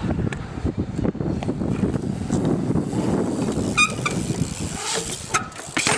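BMX bike tyres rumbling across a concrete skatepark, with scattered knocks and a brief high squeak a little before four seconds in.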